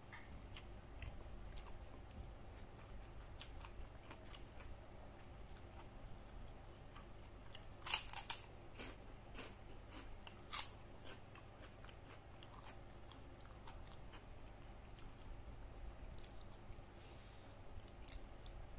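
Chewing and biting into a crunchy kerupuk cracker while eating by hand: scattered small mouth clicks, with a cluster of loud crisp crunches around the middle and one more shortly after.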